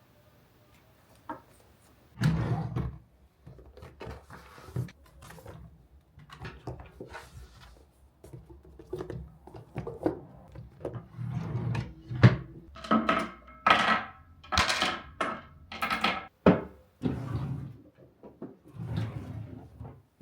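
Books being handled and stacked: irregular thunks as they are set down, with rustling and scraping of covers and pages.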